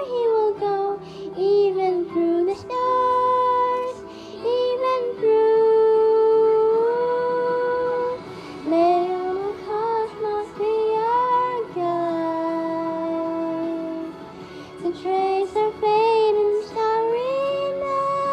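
A girl singing, sliding up and down between notes and holding several long notes.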